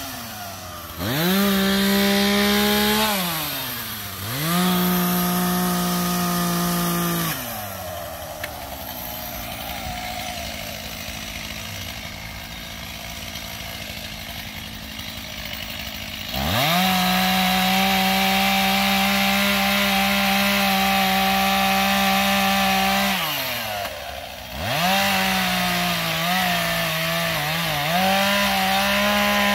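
STIHL MS 251 two-stroke chainsaw revving up to full throttle for cuts through branches and dropping back to idle between them. Two short cuts come early, then a long idle, then a long full-throttle cut of about six seconds, followed by more short revs near the end.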